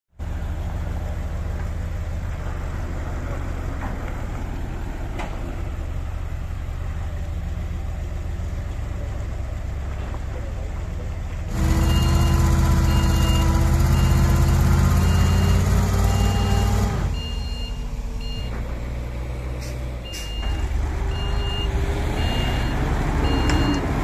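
Diesel engine of a UD Nissan concrete pump truck running low and steady. About halfway through it grows louder, its note climbing as it works, and a reversing alarm starts beeping about once or twice a second.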